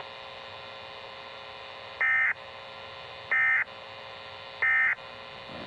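NOAA Weather Radio SAME end-of-message signal: three short digital data bursts about a second and a third apart, over a steady radio hum. The bursts mark the end of the severe thunderstorm warning message.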